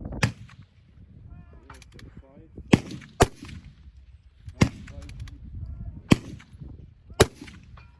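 Rifle shots from a 6mm BR Norma precision rifle with a muzzle brake: six sharp cracks at uneven spacing, two of them in quick succession about three seconds in.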